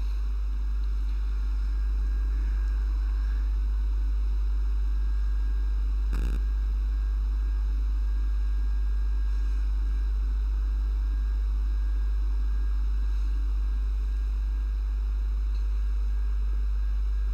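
A steady low electrical hum with faint background hiss, and a single soft knock about six seconds in.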